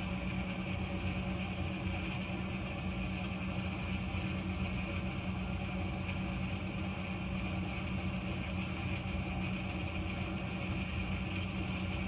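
Steady rumble of an Amtrak passenger train, with a constant low hum running through it.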